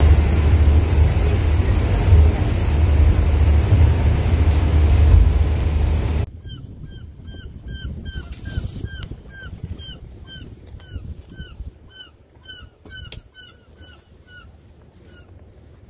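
Passenger ferry running, heard from inside its cabin: a loud, steady low rumble with the rush of water and engine noise. It cuts off about six seconds in, and a quieter stretch follows with a rapid series of short, squeaky calls falling in pitch, about two or three a second, ending a couple of seconds before the end.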